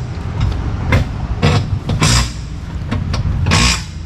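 A vehicle engine running steadily with a low rumble. Three short bursts of hiss and a few sharp clicks come over it.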